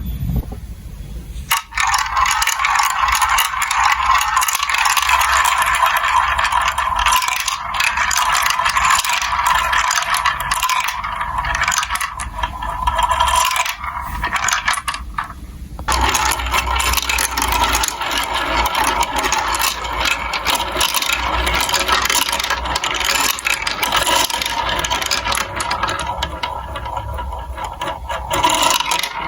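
Marbles rolling and rattling along plastic building-block marble run tracks, a continuous clatter that grows fuller about halfway through.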